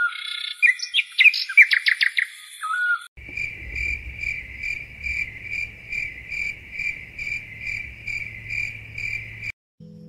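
Chirping bird calls over a steady high insect drone for about three seconds. Then night insects take over: a trill in even pulses about two a second, over a faint low rumble, ending abruptly about half a second before the end.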